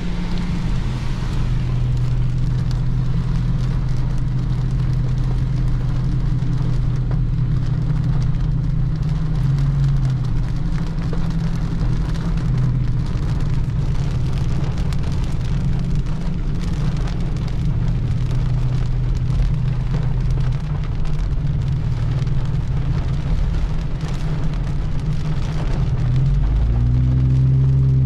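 A car's engine and road noise while driving, heard from inside the car, with rain pattering on it. The engine note rises and gets louder near the end.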